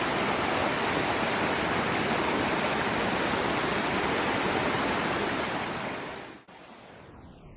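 Steady, even rushing noise, like falling water or pink noise, that starts abruptly. About six seconds in it dips, and its highs are swept away so that it ends as a faint, dull hiss.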